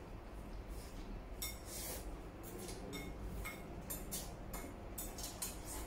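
Chopsticks clicking and clinking against porcelain bowls as two people eat noodles and rice: a string of short, sharp clicks, some with a brief ring.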